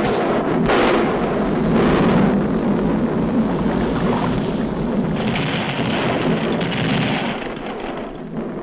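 Animated-cartoon sound effects of a volcano erupting: continuous deep rumbling with heavy blasts surging a second or two in, and a hissing rush joining in about five seconds in.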